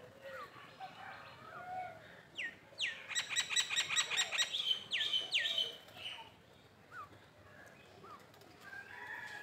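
Birds calling: short downward-sliding chirps scattered throughout, and a fast rattling trill lasting about a second and a half, a few seconds in, which is the loudest part.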